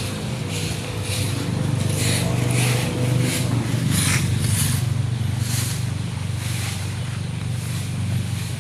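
An engine runs steadily with a low hum. Short scratchy hisses repeat about twice a second over it.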